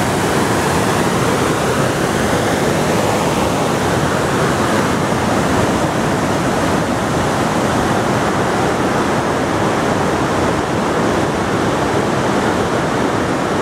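Rushing creek water cascading over boulders and rocks below a footbridge: a loud, steady rush of white water.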